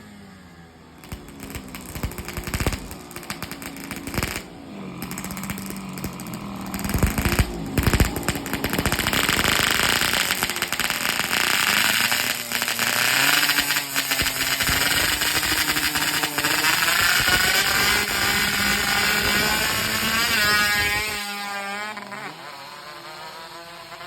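A motorcycle engine being revved and running rough, with a stuttering, popping exhaust: the engine is coughing. The revs climb near the end, then drop off suddenly.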